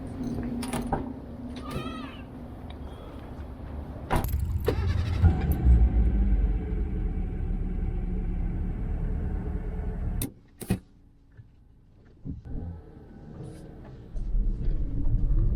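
A car's engine running with a low rumble that grows louder after a sharp click about four seconds in. It stops abruptly after about ten seconds, leaving a few clicks and knocks, then comes back loud near the end.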